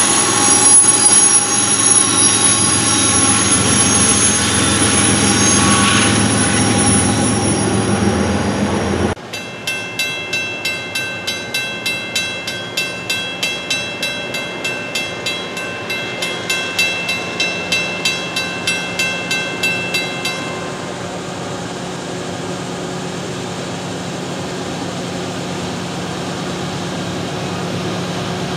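CSX diesel freight locomotives running as the train passes, a loud steady engine drone with several steady tones. About nine seconds in it cuts off sharply and a bell-like ringing follows at about two strokes a second for some ten seconds, then a steady, quieter drone from an approaching train.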